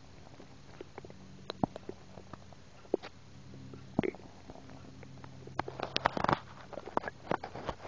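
Human stomach gurgling as swallowed soda and air move down: scattered small pops and clicks over a faint low rumble, with a denser run of gurgles about six seconds in.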